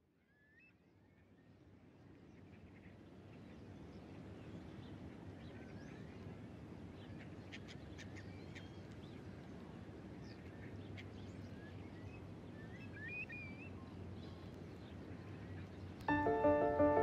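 Outdoor nature ambience fading in: a steady low rumble with scattered short bird chirps and a few faint clicks. Near the end, music starts abruptly and becomes louder than the ambience.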